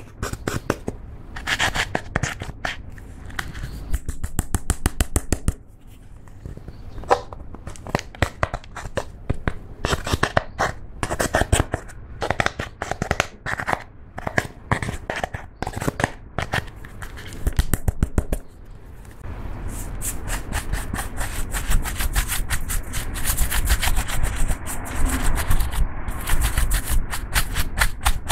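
Pressed eyeshadow being scraped and crumbled out of a palette's pans with a thin plastic pick, a fast run of scratchy scrapes and clicks. From about two-thirds in it changes to a steadier, denser sweeping as a makeup brush is brushed over the pans.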